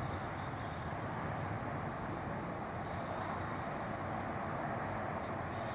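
Steady, even hum of distant city traffic, with no thunder or rain heard.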